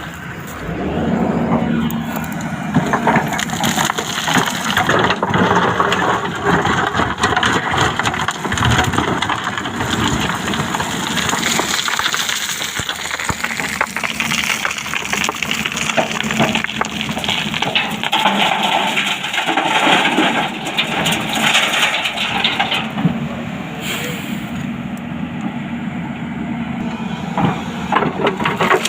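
Excavator at work: its engine running under a dense, continuous crunching and crackling from the machine handling material.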